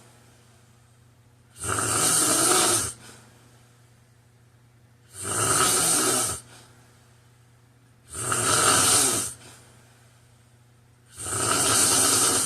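A man snoring in his sleep: four even snores about three seconds apart, each lasting a little over a second, with quiet breathing gaps between them.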